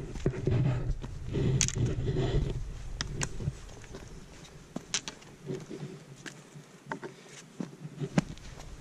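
Footsteps of hiking boots on a wet, stony mountain path: irregular knocks and scrapes on loose stones and rock, about one or two a second. A denser rustle runs under the first three seconds, then thins out.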